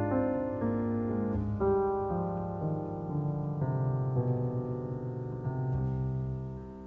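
Slow instrumental music played on a keyboard, with held chords changing about twice a second and no singing.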